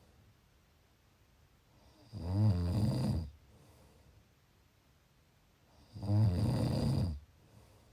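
A person snoring in sleep: two snores, each a little over a second long, about four seconds apart.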